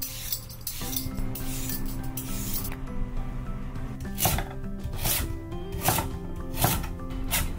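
A metal Y-peeler scraping the skin off a sweet potato in a few strokes. Then, from about four seconds in, a chef's knife slices through the sweet potato onto a wooden cutting board: about five chops, a little under a second apart.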